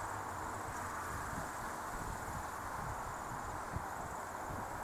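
Steady, distant roar of a Boeing 757-200's jet engines as it climbs away after takeoff. A faint high insect trill and wind buffeting the microphone run underneath.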